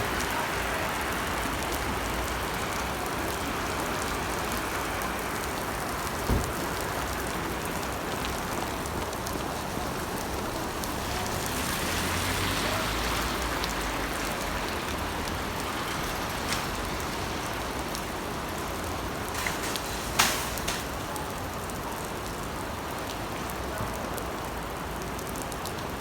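Heavy rain pouring down steadily, with a few sharp knocks or drips, the loudest about 6 and 20 seconds in.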